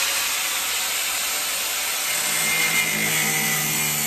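Angle grinder with a 1 mm cutting disc slicing through the rusty sheet steel of a VW T4 tailgate's window frame: a loud, steady hissing grind.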